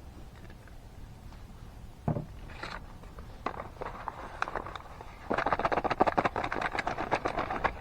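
Handling of food containers and utensils while plating a meal: a knock about two seconds in, scattered clicks, then a fast run of clicking and rattling for the last two and a half seconds.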